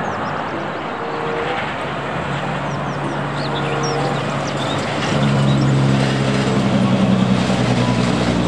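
Diesel car-carrier truck loaded with cars driving past on a street: engine hum over tyre and road noise, the engine getting louder about five seconds in.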